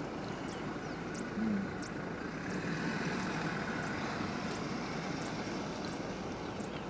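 Steady low rumble of outdoor background noise with faint, short high chirps now and then and a brief low sound about a second and a half in.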